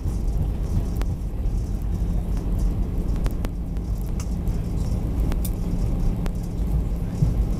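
Cabin noise of an Airbus A320 rolling on the ground after landing: a steady low rumble of its CFM56 engines and wheels, with short sharp knocks here and there.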